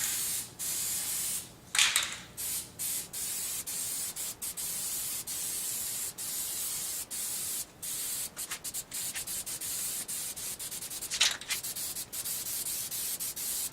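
Aerosol spray can of primer hissing in passes over a plastic bumper cover, cutting in and out many times as the nozzle is pressed and released while a light second coat goes on. Two brief louder noises stand out, about two seconds in and near the end.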